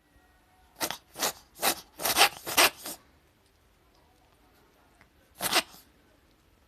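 Sneezing: a quick run of about six sharp sneezes within two seconds, then one more single sneeze about five and a half seconds in.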